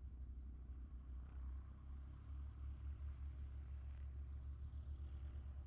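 Faint, distant engine noise that swells and then fades over a few seconds, over a steady low rumble.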